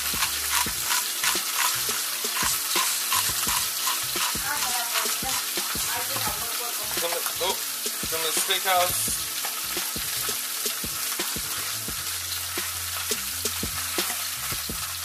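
Chicken leg quarters frying in a skillet, the oil sizzling and popping steadily, with the rhythmic rattle of a seasoning shaker being shaken over a pan, clearest in the first few seconds.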